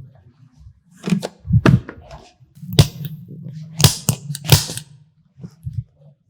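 Several sharp cracks from the neck during a chiropractic cervical manipulation: joints popping as they are thrust.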